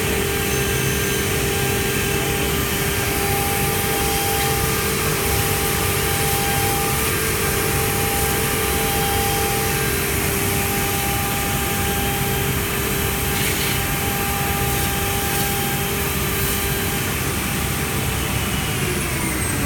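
CNC machine running with a steady mechanical whir and a few steady humming tones. Near the end one tone begins to fall in pitch.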